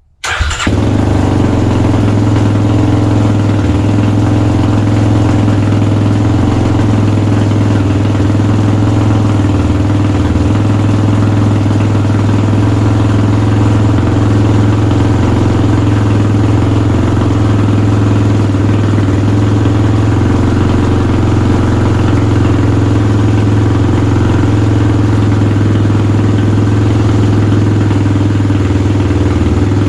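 Kawasaki KLX300R's single-cylinder four-stroke engine idling steadily through a newly fitted Pro Circuit T6 full exhaust, running on a fresh Power Commander fuel map. The sound starts abruptly and then holds at an even pitch and level.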